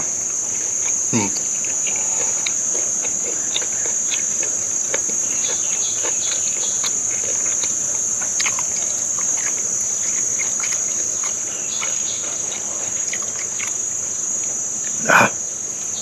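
A steady, high-pitched drone of insects shrilling, with scattered faint clicks and taps over it.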